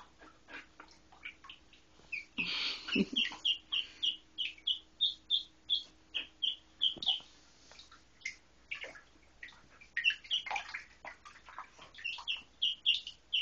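Duckling peeping: short, high, repeated peeps about three a second, in two runs. A brief splash of water a little over two seconds in.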